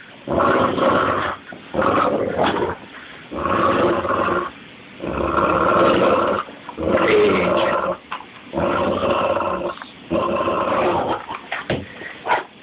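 A 130-lb Cane Corso mastiff growling in play while gripping and shaking a bike tire. There are about seven deep growls of a second or so each, with a breath between them, and a few short knocks near the end.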